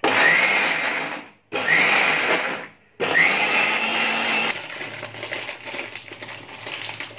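Electric mixer grinder run in three short pulses, each starting with a rising whine as the motor spins up, as it grinds roasted onion, tomato, garlic and ginger into a masala paste. After the last pulse stops, lighter clatter follows.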